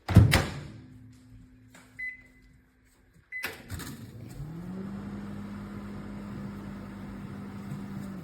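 Panasonic NN-SN97JS inverter microwave: a heavy thud at the start, two short beeps, then the oven starts running. Its hum rises in pitch over about a second and then settles into a steady run.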